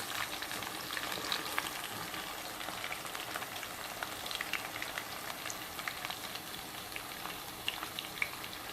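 Marinated chicken frying in hot oil: a steady sizzle with scattered crackles and pops.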